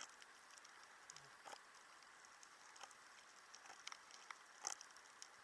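Faint underwater crackle on a reef: scattered sharp clicks over a steady low hiss, typical of snapping shrimp, with one louder click near the end.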